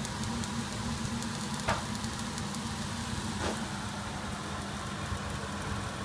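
Thin slices of red meat sizzling and crackling in a hot frying pan on a ceramic electric hob, over a steady low hum.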